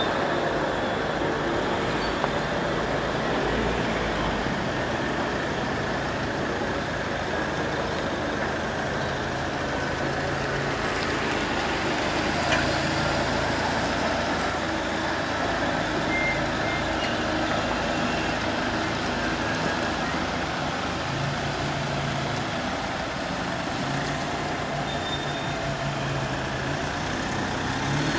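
Heavy truck with a multi-axle low-loader trailer driving slowly past: steady engine and tyre noise from the many rolling wheels, with a deeper engine hum near the end.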